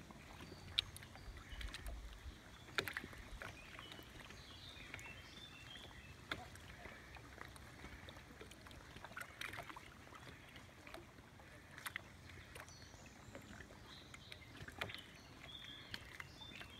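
Quiet lapping of small lake waves, with scattered sharp clicks every second or two.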